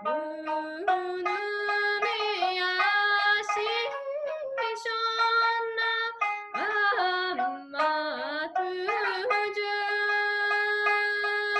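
A woman singing with held notes that slide between pitches while plucking a sanshin, the Okinawan three-stringed lute.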